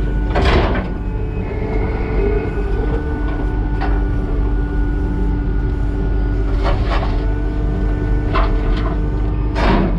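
A skid steer's diesel engine runs steadily, with several short, sharp knocks and scrapes from the machine at work. The strongest come about half a second in and again near the end.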